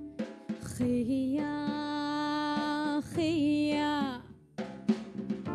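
Live band music: a woman sings two long held notes, the second wavering, over bass guitar. A short break follows, then drum hits come back in near the end.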